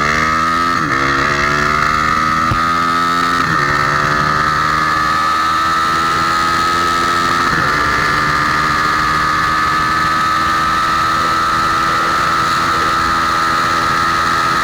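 Engine of a Honda Tornado motorcycle, a single cylinder bored out to 293 cc, running hard on its first test. The pitch climbs at the start, dips briefly a few times in the first half, then holds steady.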